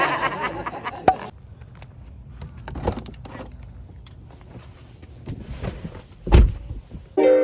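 Scattered clicks and knocks, then one heavy, deep thump about six seconds in, with piano music starting at the very end.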